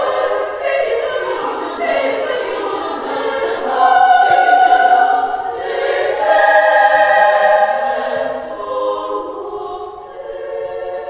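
A women's choir singing sustained chords, swelling and easing in waves, with crisp 's' consonants heard together across the voices. The singing grows softer near the end.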